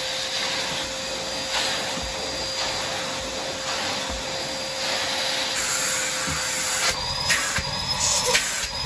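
Numatic Basil NB200 tub vacuum cleaner running at full speed, a steady motor whine over the rush of suction as the floor tool is pushed over carpet. Near the end the air sound wavers and there are a few knocks as the hose and wand are handled. It sounds healthy: 'really nice'.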